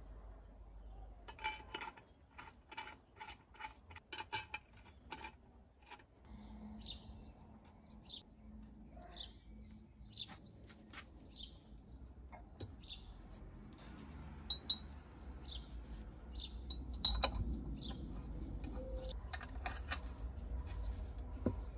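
Small metal clicks and clinks from bell parts and tools being handled, a quick run of them in the first few seconds, with birds chirping now and then throughout.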